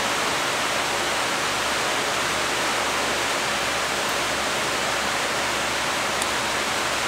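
Steady rushing noise of electric fans blowing.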